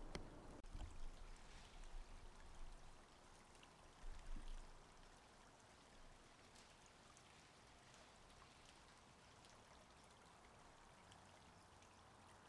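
Near silence: a faint steady hiss, with a few soft low knocks in the first few seconds.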